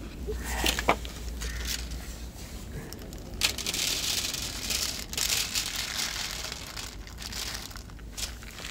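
Dry cat kibble poured from a plastic bottle, rattling and pattering into a plastic dish for about two and a half seconds in the middle, with a few scattered clicks and rustles before it.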